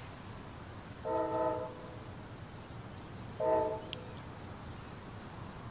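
Air horn of an approaching Amtrak P42DC diesel locomotive sounding a chord of several notes twice: a blast about a second in lasting most of a second, then a shorter one about three and a half seconds in.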